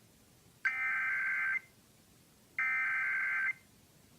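Emergency Alert System SAME header data bursts: two identical one-second bursts of buzzing two-tone digital code, about a second apart. This is the encoded header that opens a Required Weekly Test.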